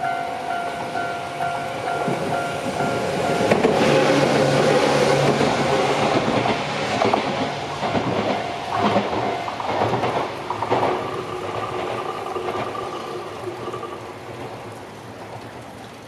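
Japanese level-crossing alarm ringing in steady repeated electronic dings, while a Shizuoka Railway electric train passes close by. The train swells to its loudest a few seconds in, its wheels clicking over rail joints, then fades away as the alarm tone changes and stops.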